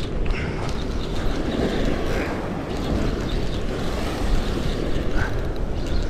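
Wind buffeting the microphone over surf washing against the rock ledge below: a steady, rushing noise heaviest in the low end.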